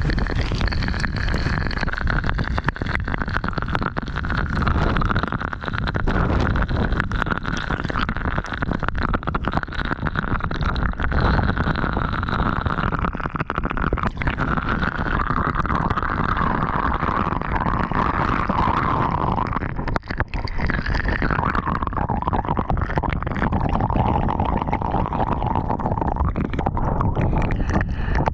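Storm wind buffeting the microphone of a GoPro taped outdoors, a steady low rumble, with rain striking the camera as a stream of sharp ticks. A higher rushing band runs on top and drifts slowly lower in pitch.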